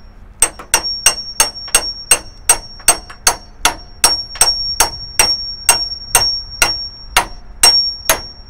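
Hammer blows on a steel pickle fork wedged behind a leaf-spring fastener, about three strikes a second, each one ringing metallically as the fastener is pounded to drive it out and release the leaf spring.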